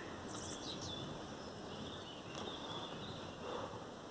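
Quiet outdoor ambience with faint bird chirps, a short cluster of high chirps about half a second in; no thunder is heard.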